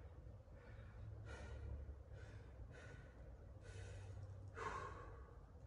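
A man breathing hard, about five breaths roughly a second apart, as he recovers from a round of push-ups and dumbbell clean and presses.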